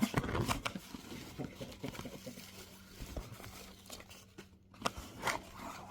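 Packaging being rustled and crinkled while a package is unpacked, with scattered sharp clicks and handling knocks.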